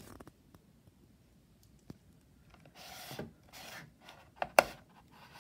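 Handling noise from a small plastic desk fan being shifted about by hand: two short rubbing scrapes around the middle, then a click and a sharp knock a little later.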